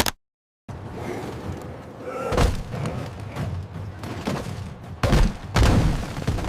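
Soundtrack sound effects: a short knock, then a steady rumble with heavy thuds about two and a half seconds and five seconds in.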